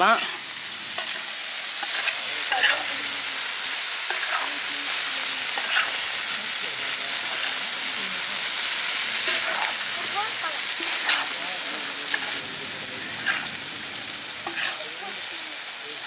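Parrot fish pieces, masala and curry leaves sizzling in coconut oil on a wide flat pan, with a steady frying hiss. A metal spatula scrapes and turns the fish every second or two.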